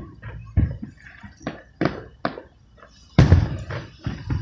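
Aerial fireworks exploding in a rapid, irregular series of booms and pops, about seven or eight reports. The biggest bang comes about three seconds in and trails off in a rumble.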